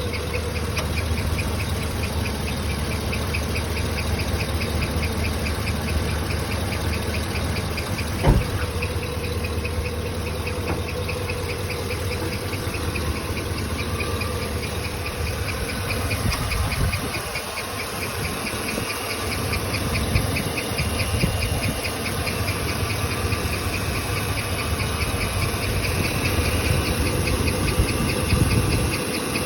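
A 2013 2500HD pickup's 6.0 Vortec V8 idling, with a rapid, even chirping tick riding over the engine sound: a noise whose cause the owner does not know. A single loud thump about eight seconds in.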